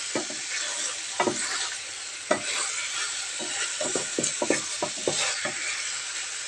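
Tofu and mushrooms in oyster sauce sizzling in a nonstick frying pan while a wooden spatula stirs them. Scattered light knocks of the spatula against the pan, most of them in the second half.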